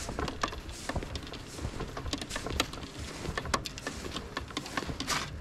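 Footsteps crunching through fresh, deep snow: a run of irregular crunches and clicks.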